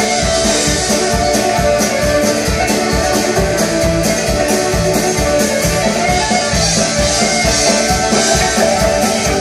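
Band playing live on stage: accordion, banjo, fiddle and guitars together over a steady beat.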